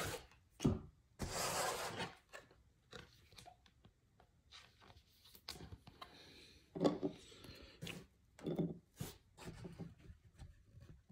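Trading cards and clear plastic card holders being handled: two short rustling slides near the start, then scattered light clicks and taps as the holders are set into clear acrylic display stands.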